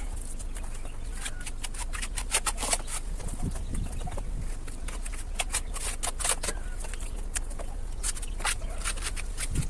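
A rapid, irregular run of short clicks and light scrapes over a steady low rumble.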